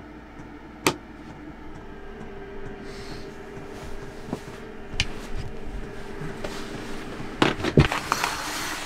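Handling noises inside a campervan over a faint steady hum: a few separate knocks, then a quick run of sharp clicks and a fabric rustle near the end as a blackout curtain is pulled back.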